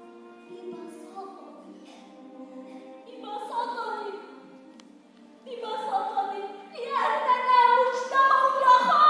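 A woman's solo voice singing long, held melodic notes through a microphone and PA. It is soft for the first few seconds, then louder from about five and a half seconds in.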